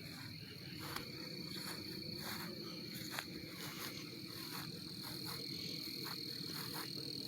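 Chorus of frogs calling steadily, with a thin, steady high-pitched insect drone above it.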